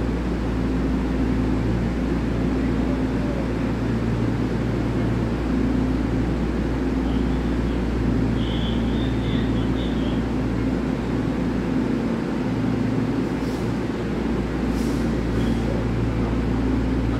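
Taiwan Railway EMU3000 electric multiple unit standing at the platform, its on-board equipment humming steadily with a few low steady tones. A few short hisses come near the end.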